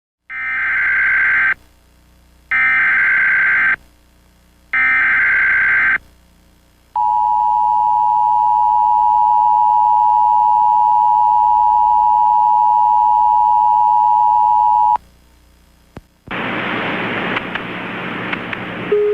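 Emergency Alert System SAME header: three short bursts of screeching digital data tones, a second or so apart, followed by the EAS two-tone attention signal, a steady, harsh dual tone held for about eight seconds. About a second after the tone stops, a loud hiss of noise begins.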